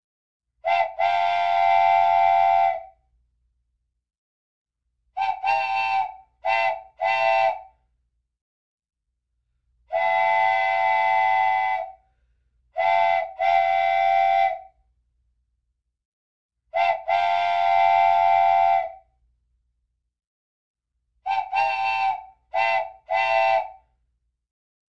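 Steam whistle blowing repeated blasts, each a chord of several tones: long blasts of about two seconds alternate with quick groups of two or three short toots, with silent gaps between.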